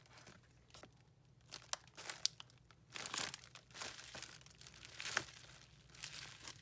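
Plastic poly mailer and bubble wrap crinkling in faint, scattered bursts as a package is unwrapped by hand, with a few sharper crackles.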